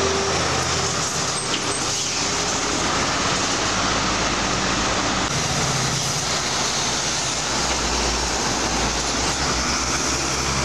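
Roadside traffic noise: a MAN tanker truck's diesel engine and tyres going past over steady road noise.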